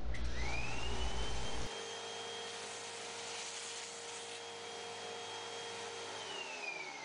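Vacuum cleaner switched on, its motor whine rising quickly to a steady high pitch as the nozzle sucks up sawdust. It runs for about six seconds, then is switched off and winds down with a falling whine near the end.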